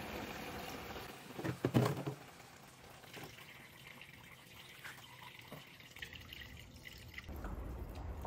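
Engine coolant draining from a car radiator into a plastic jug: a steady pouring stream, then scattered drips. About a second and a half in, a brief loud burst of handling noise from the jug.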